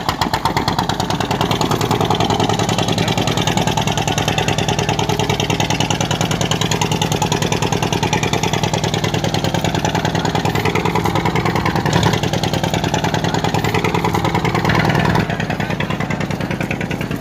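Engine of a motorised wooden passenger boat running steadily with an even, rapid puttering beat. It drops in level near the end.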